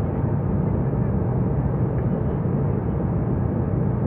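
Jet airliner cabin noise in cruise flight: a steady, low, even rush of engines and airflow, heard inside the cabin.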